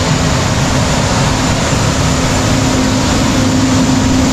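Concrete mixer truck running: a steady, loud engine noise with a constant low whine.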